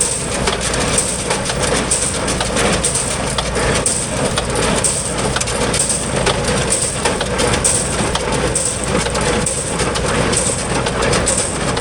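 Small square baler running behind a tractor, packing straw and alfalfa, with a rhythmic crunching stroke about once a second over the tractor engine's steady hum.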